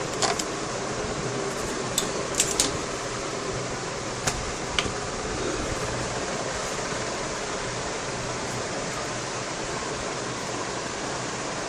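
A steady background hiss with a few light clicks and taps in the first five seconds, from the laptop's plastic screen-bezel parts being handled.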